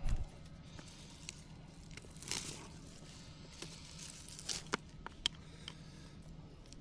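Weeds and brush being pulled and handled by hand: rustling and tearing of leafy growth, with scattered sharp snaps and a low thump at the start.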